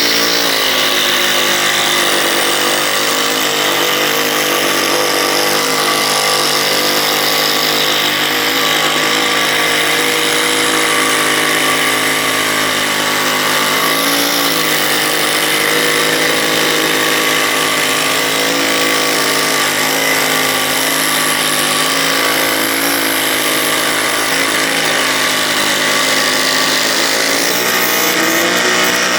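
A power tool's electric motor running continuously through a woodworking job. Its pitch sags and recovers briefly now and then, as the tool takes load in the wood.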